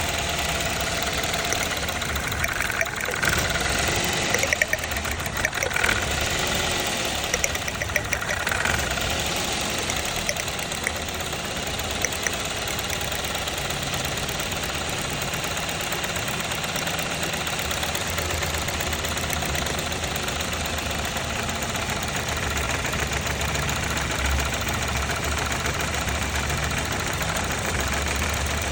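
Toyota engine idling, with a misfire being diagnosed. Several sharp ticks or knocks come in the first third, then it runs on steadily.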